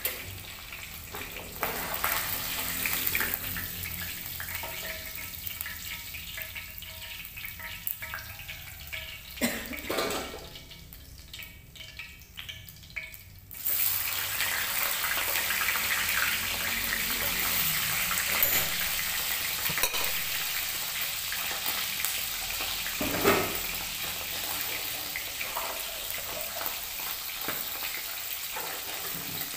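Hot oil sizzling in a frying pan as chicken pieces and salted pindang fish fry, with occasional clinks of a utensil against the pan. The sizzle thins out for a few seconds near the middle, then comes back louder and steady.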